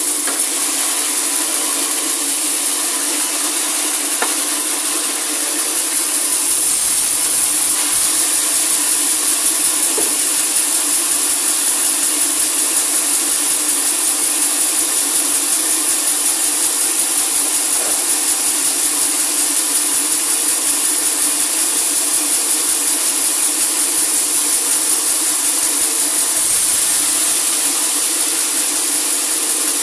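Sawmill saw cutting through a large log, a steady loud hiss with a droning undertone that grows slightly louder about six seconds in.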